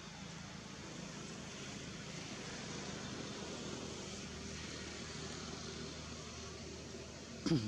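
Steady outdoor background noise: a faint even hiss with a low hum under it. Near the end comes one brief, louder sound that falls in pitch.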